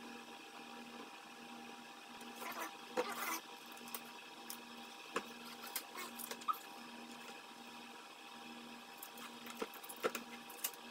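Blue painter's tape being pulled, torn and pressed onto a plastic car bumper cover: scattered crackles and rustles, busiest about three seconds in and again near the end, over a faint hum that pulses about once a second.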